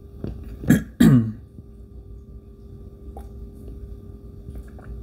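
A man clears his throat: two short, rough rasps about a second in. A few faint clicks follow later as he handles something.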